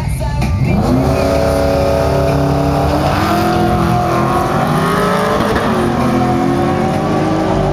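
Drag-racing cars, a Toyota Cressida with a 1JZ-GTE turbo straight-six and a VX Commodore SS V8, launching and accelerating hard. Engine pitch rises sharply in the first second, then holds high, with a few shifts in pitch.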